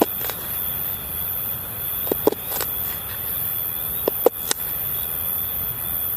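Steady rushing water noise, with a thin steady high-pitched tone over it and a scattering of short sharp ticks and knocks, several of them in quick pairs.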